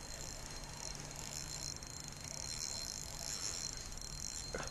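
Spinning reel clicking in a fast, even run while a hooked chain pickerel is fought on the line.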